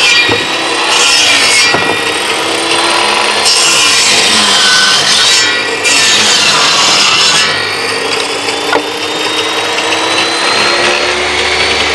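Table-mounted power saw with a narrow blade cutting through a wooden block, sawing out a square cricket-bat handle. The saw runs without a break, with louder stretches as the blade bites into the wood.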